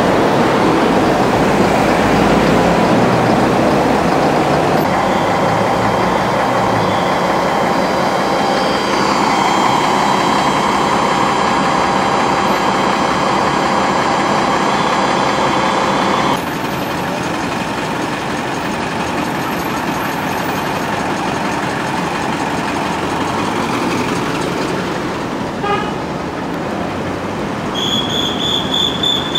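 Road traffic noise from buses and cars in heavy, slow congestion. Through the middle a steady tone holds for about ten seconds, and near the end comes a quick run of high beeps.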